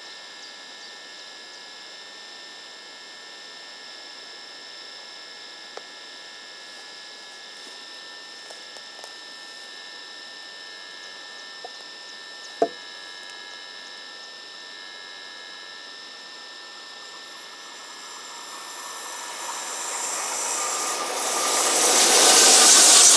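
Steady trackside background with a constant high-pitched hum, broken about halfway through by a single sharp snap. Over the last few seconds an electric passenger train approaches and arrives, its rushing noise swelling to the loudest sound as it draws level.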